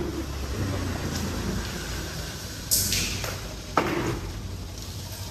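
Used engine oil dripping from a homemade sawdust-and-sand filter into a plastic cup, with a couple of short drip sounds about halfway through over a steady low hum.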